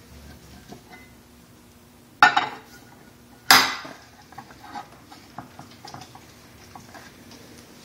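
A flat steel plate clanking twice against steel frame rails, about a second apart, each clank ringing briefly, then light taps and clicks as it is shifted into position.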